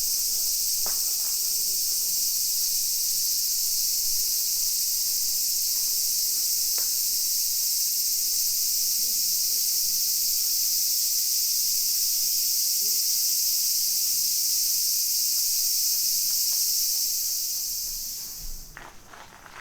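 A summer insect chorus: a dense, steady, high-pitched shrill hiss that cuts off suddenly near the end.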